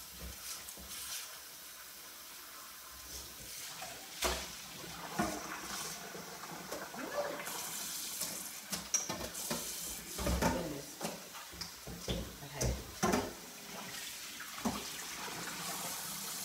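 Water from a kitchen faucet running into a pot in the sink, louder from about halfway through, with several clunks and knocks of cookware being handled.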